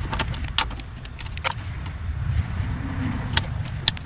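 Rapid, irregular metallic clicks of a long-handled socket wrench working the cylinder head bolts during torquing, over a low rumble.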